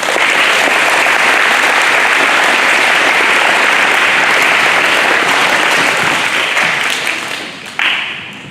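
Audience applauding, a dense sustained clapping that starts abruptly and dies away after about seven seconds. A short burst of noise comes near the end.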